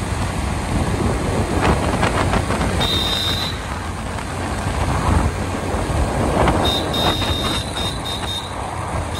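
Road traffic noise: vehicle engines and tyres with a continuous rumble. A high electronic beep sounds about three seconds in, then comes again as a run of short beeps near the end.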